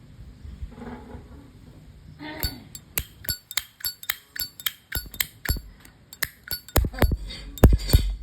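1958 brushed-chrome Zippo lighter's lid flipped open and snapped shut over and over: crisp metallic clinks in quick succession that start about two seconds in and get louder near the end. The clink comes from the original hinge, and its sound is judged fine.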